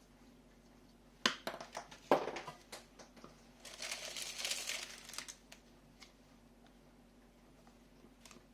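Packaging being handled: a few sharp knocks and clicks, then about a second and a half of plastic crinkling.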